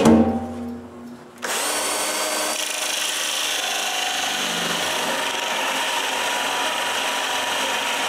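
Power drill driving a hole saw through a countertop to cut a faucet hole, a steady cutting grind that starts about a second and a half in.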